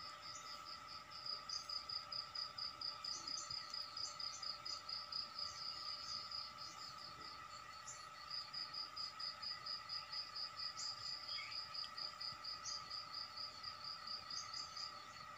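An insect chirping in a fast, even, high-pitched pulse, about six chirps a second, with a short break a little before the middle, over a steady high hum.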